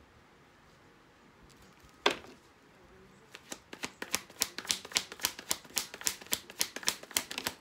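Deck of tarot cards being shuffled by hand: one sharp tap about two seconds in, then a rapid run of card clicks, about five a second, over the last four seconds.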